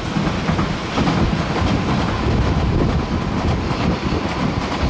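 Nagoya Municipal Subway Higashiyama Line train running past on an open-air surface section, a steady rumble of wheels on rail.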